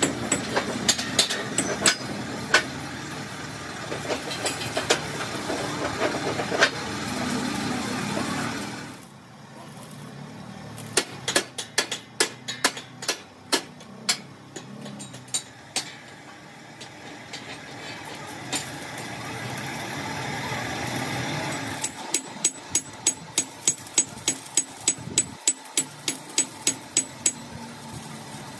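Hammer blows on steel plate: sharp metallic strikes in bursts, ending in an even run of about two or three blows a second near the end. Under them runs a steady machine hum.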